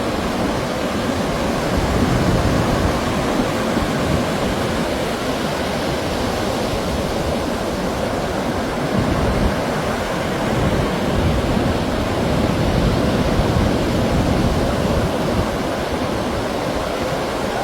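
Heavy monsoon surf breaking in a steady rush of noise, with wind buffeting the microphone in uneven low gusts.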